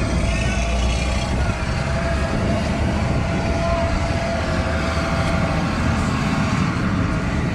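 Heavy-equipment diesel engine running steadily, with a steady whine over the engine sound.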